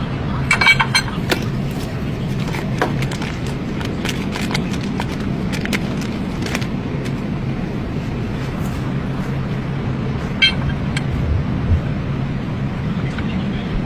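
Vehicle engine running steadily with a low hum, with scattered metal clicks and taps throughout and a ringing metallic clink about a second in and again about ten seconds in.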